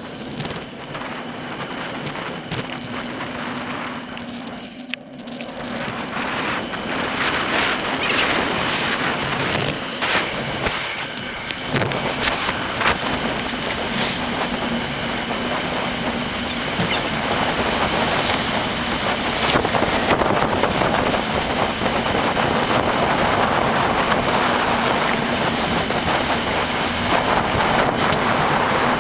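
Wind buffeting a handlebar-mounted action camera's microphone, mixed with tyre and road noise from a moving bicycle: a dense rushing noise with scattered knocks and rattles, sped up four times. It dips briefly about five seconds in and grows louder afterwards.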